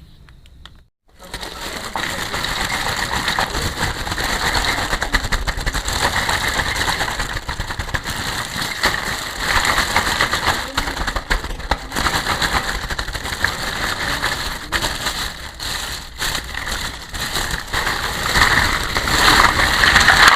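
Plastic packaging crinkling and crackling as it is handled and unwrapped, starting about a second in.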